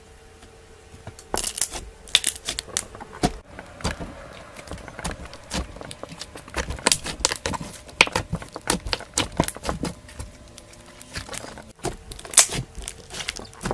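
Slime being squished and pressed by hand, giving an irregular run of sticky clicks, pops and crackles.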